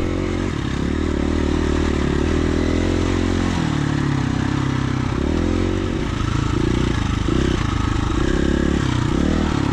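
Dirt bike engine running on a trail ride, heard from on the bike. Its pitch steps down and back up several times as the rider shifts and works the throttle.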